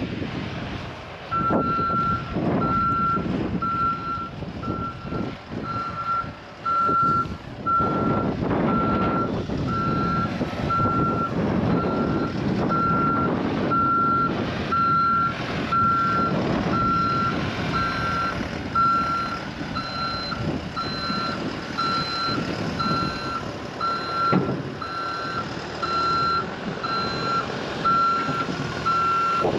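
Vehicle backup alarm beeping steadily about once a second as a vehicle reverses, over the sound of its engine running.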